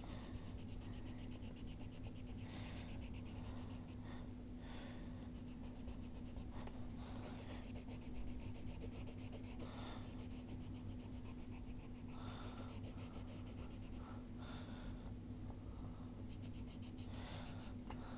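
Charcoal pencil scratching on paper in repeated, irregular shading strokes, over a steady low hum.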